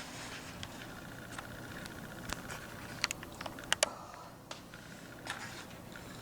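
Quiet room with a faint steady low hum and a few scattered faint clicks and small handling noises.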